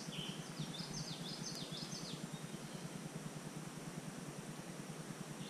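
A songbird singing a quick run of about eight sharp, sweeping high notes for about two seconds near the start, with one more brief note at the end, over a steady low background hum.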